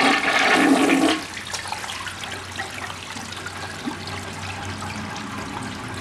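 Vintage 1963 Universal-Rundle (Briggs) toilet flushing: a loud rush of water for about the first second, then the bowl swirling and draining more quietly.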